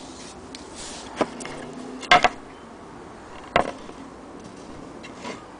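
The wooden base of an antique sewing machine knocked and shifted as it is handled: a sharp wooden knock about a second in, a louder quick double knock about two seconds in, another knock a little later, and a fainter one near the end.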